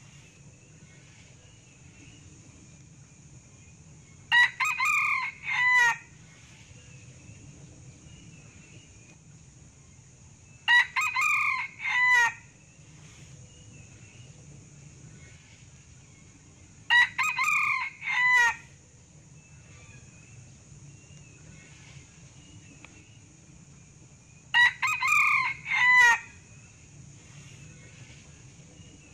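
Male red junglefowl crowing four times, about every six to seven seconds, each crow a short phrase closing with a separate final note, over a steady high hiss.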